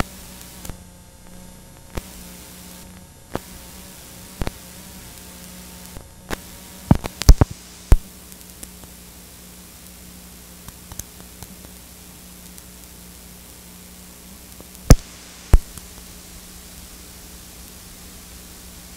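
Steady hiss and static with a faint low hum, broken by sharp loud clicks: the noise of a videotape after the recorded program has ended and the picture has gone to a blank blue screen. The clicks come in a cluster about seven seconds in and twice more near fifteen seconds.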